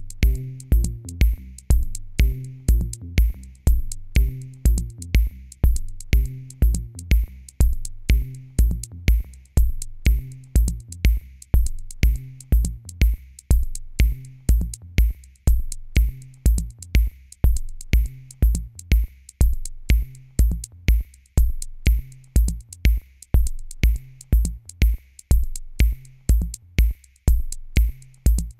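Electronic background music with a steady drum-machine beat and a bass line.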